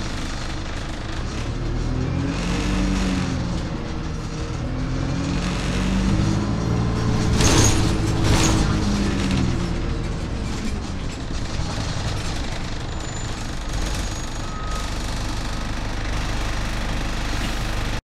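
Alexander Dennis Dart SLF single-decker bus heard from inside the passenger saloon while driving. The engine rises and falls in pitch twice as the bus accelerates and eases off. Two short loud hisses come about halfway through.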